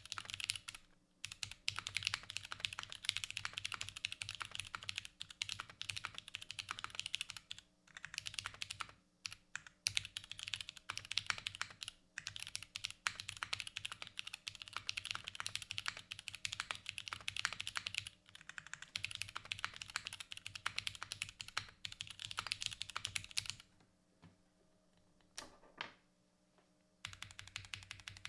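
Typing on a mechanical keyboard with Cherry MX Vintage Brown tactile switches on a carbon fibre plate and GMK keycaps: fast, continuous runs of keystrokes broken by a few short pauses, and a longer pause near the end with one lone stroke in it.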